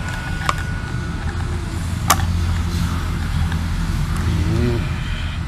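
Steady low rumble, with a sharp click about half a second in and a louder one about two seconds in: wires, terminals or tools being handled while the motor's capacitors are wired up.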